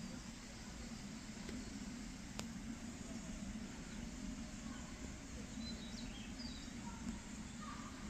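Steady outdoor forest ambience: an even background rush with a few faint bird chirps about halfway through.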